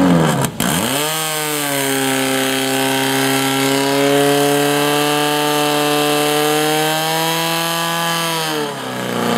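Portable fire pump's engine running at high revs, driving water through the hoses to the nozzles. Its pitch dips sharply about half a second in, climbs back to a steady high note, and sags near the end.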